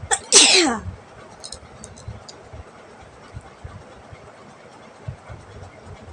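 A single loud, abrupt sneeze about half a second in, its voiced tail falling in pitch, provoked by a jackfruit-leaf midrib pushed into the nostril. A few faint clicks follow.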